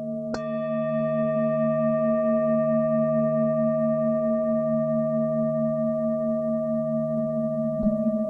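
Tibetan singing bowls ringing in long, overlapping tones with a slow pulsing wobble. A bowl is struck about half a second in, adding a bright ring that slowly fades, and a second light strike comes near the end.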